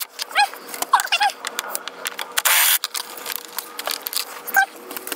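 Tools working the fasteners of a Jeep JL/JT auxiliary battery mount: scattered metallic clicks and clatter, a short dense burst of noise about two and a half seconds in, and a few short high squeaks.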